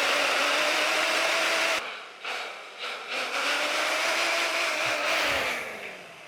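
Electric power saw cutting through metal tubing: a motor whine over a harsh cutting hiss, the whine dipping in pitch as the blade loads. It breaks off briefly about two seconds in, then winds down with a falling whine near the end.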